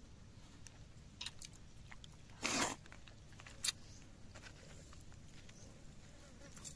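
Fingers squishing and pressing boiled rice and curry on a leaf plate, with small clicks and crackles of the leaf. A short rustle about two and a half seconds in is the loudest sound, followed about a second later by a sharp click.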